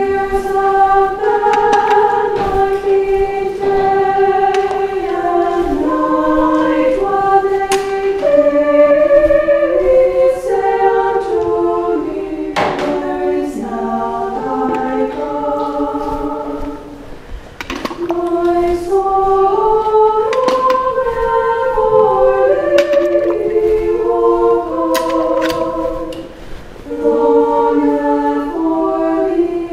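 Church choir singing unaccompanied, a sustained melody in held notes with short breaths between phrases.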